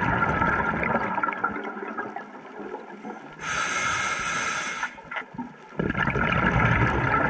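Scuba diver breathing through a regulator underwater. It opens with exhaled bubbles gurgling, then a short hissing inhalation about three and a half seconds in, then another stream of exhaled bubbles from about six seconds in.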